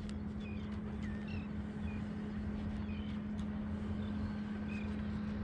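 Steady low motor drone with faint, short bird chirps scattered through.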